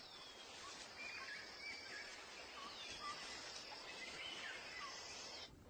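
Faint forest ambience: scattered short, high bird chirps over a steady high hum and hiss, cutting off abruptly near the end.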